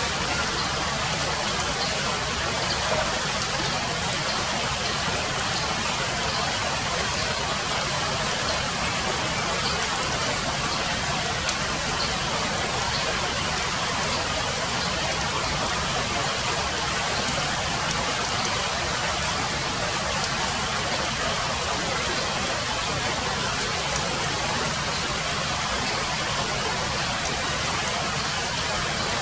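Steady rain falling on foliage.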